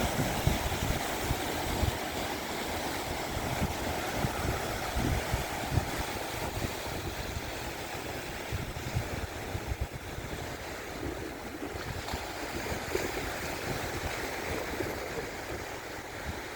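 Black Sea surf washing steadily onto the shore, with wind buffeting the microphone in low rumbles.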